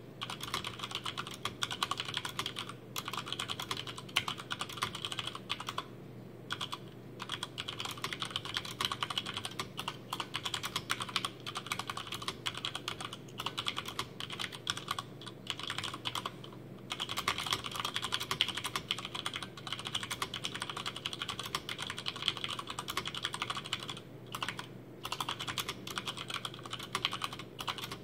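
Fast typing on a Hansung GO187 VIKI mechanical keyboard with Cherry MX Brown switches, unlubricated and without sound-dampening: a dense stream of key clacks, with brief pauses about six, sixteen and twenty-four seconds in.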